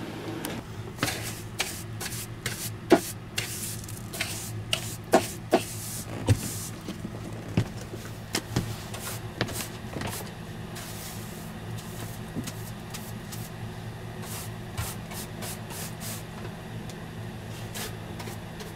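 A steady low hum with scattered sharp clicks and taps. The taps come thickly through the first half and thin out later.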